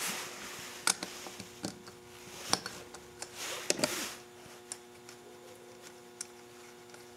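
Scattered light metal clicks, taps and rubbing as hands handle a 1985 Honda Shadow CV carburetor on a rubber mat and work a 7 mm socket on its main jet, over a faint steady hum. The sharpest clicks come about a second in and around two and a half to four seconds in.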